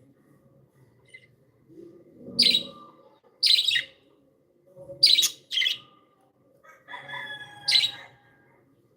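Pet budgerigars calling: five loud, sharp chirps about a second apart, with a short whistled warble just before the last one near the end.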